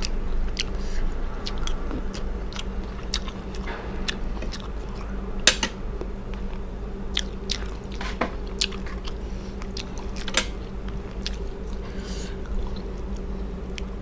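A person chewing food close to a clip-on microphone, with many small scattered mouth clicks and two sharper ones about five and ten seconds in, over a steady low hum.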